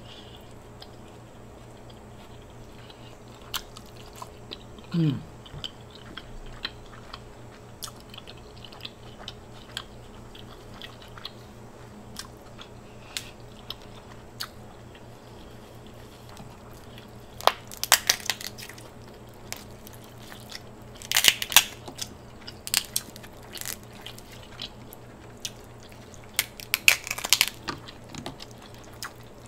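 Close-miked eating of a king crab and shrimp boil: soft chewing and small mouth and finger clicks, with three bursts of sharp crackling as king crab shell is broken and picked apart, one about two-thirds of the way in and two more near the end. A short falling "mm" of enjoyment comes about five seconds in.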